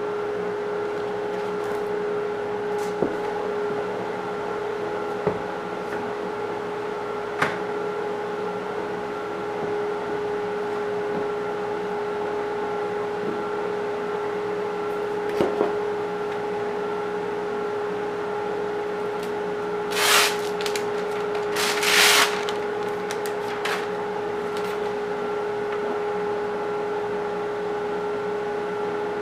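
Electric random orbit sander running steadily on heart pine floorboards, a constant motor whine. A few sharp knocks, and two short loud bursts of hiss about two-thirds of the way through.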